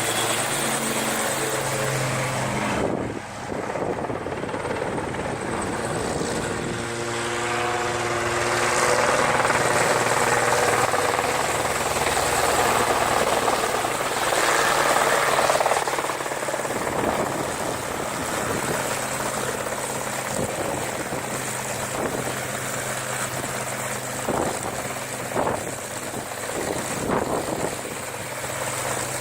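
Helicopter in flight, its rotor and engine running steadily; it grows louder and noisier from about a quarter of the way in to past the middle, then eases off.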